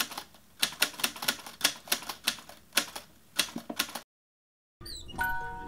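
Typewriter key clicks in quick runs, a typing sound effect; they stop about four seconds in. After a brief silence, a bell-like music tune starts near the end.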